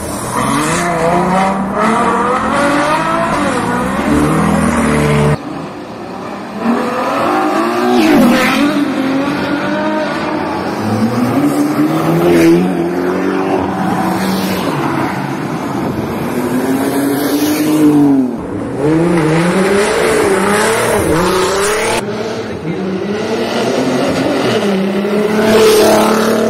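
Sports car engines revving and accelerating hard, one car after another, each climbing in pitch and then dropping at the gear changes. A Ferrari GTC4Lusso revs at the start, and a Nissan 300ZX accelerates past near the end.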